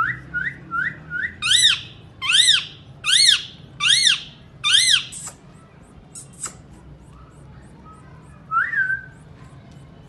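Ringneck parakeet calling: a quick run of four short rising notes, then five loud, evenly spaced arched screeches, and one more call near the end.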